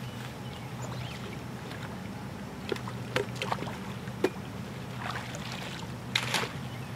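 Water splashing and sloshing as a caught fish is put into a wire fish basket in shallow pond water, with a few light knocks and a louder splash about six seconds in. A steady low hum runs underneath.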